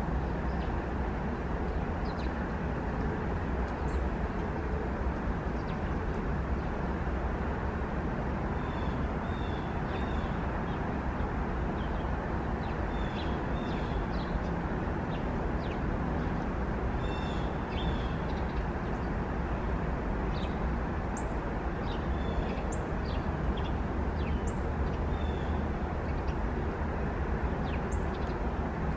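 Steady outdoor background rumble, like distant traffic, with short, high bird chirps scattered through, more of them in the second half.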